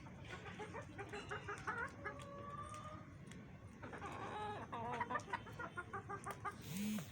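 A flock of chickens clucking and calling, with many short overlapping calls, one longer drawn-out call about two seconds in and a louder pair of calls near the end.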